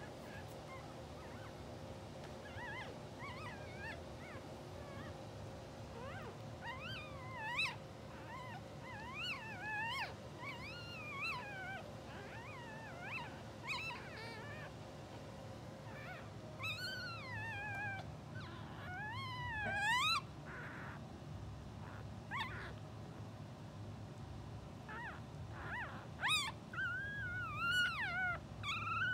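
Newborn English bulldog puppies squeaking and whimpering: short, high, wavering cries that come sparsely at first, then more often, with bunches of cries in the middle and near the end.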